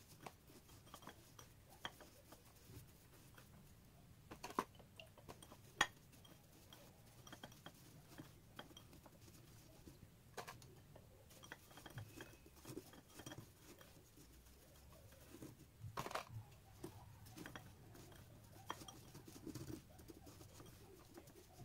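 Faint crunching and scraping of coarse salt as a hand rolls a chicken egg in it in a ceramic bowl, with a few sharp light taps scattered through.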